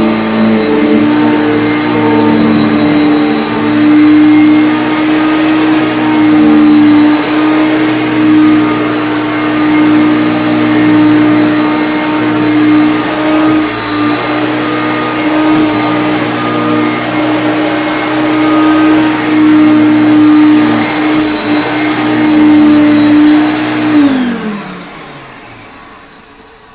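Hoover Concept One upright vacuum cleaner running steadily, its loudness rising and falling as it is pushed. About 24 seconds in it is switched off and the motor winds down, its pitch falling as it fades.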